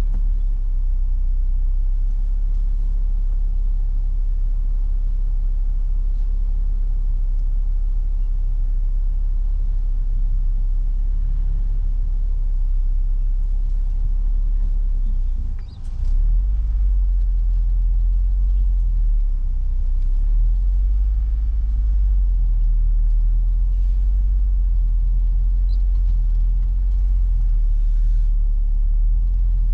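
Peugeot 406 on the move: a steady low rumble of engine and road noise, with a short dip in loudness about halfway through.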